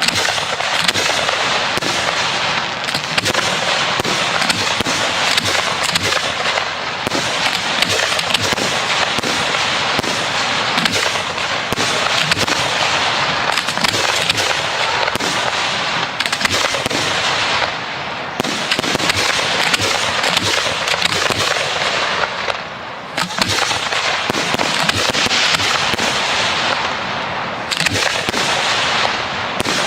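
Professional 1.3G display fireworks going off in a dense, continuous barrage of bursts and crackling, with a couple of short lulls partway through.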